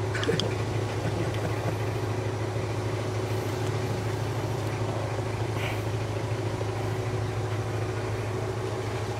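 Steady low mechanical hum that does not change in pitch or level.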